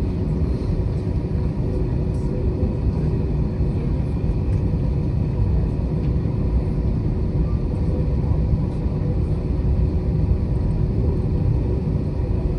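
Cabin noise of an Airbus A321-200 taxiing after landing: a steady low rumble with a faint steady hum over it.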